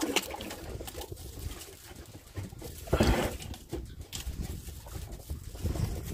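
Wind buffeting the microphone over open sea, with a short rustling burst about three seconds in.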